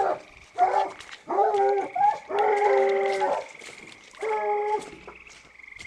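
Dogs baying in about five separate drawn-out calls, the longest a little past the middle lasting about a second: hunting dogs baying at a cornered raccoon.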